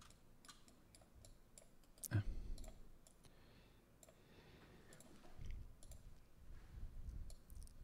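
Computer mouse clicking, faint scattered clicks, with one louder knock about two seconds in.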